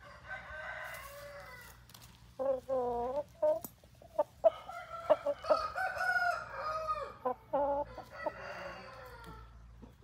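Aseel roosters crowing and clucking: a hoarse call, a short call, then a long crow of about three seconds in the middle and another hoarse call near the end, with a few sharp clicks between.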